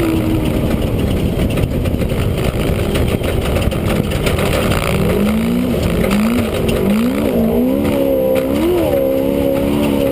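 Off-road race vehicle's engine heard from inside the cockpit over a loud, steady rumble from the ride. From about halfway in, the engine note climbs and drops several times as the throttle is worked.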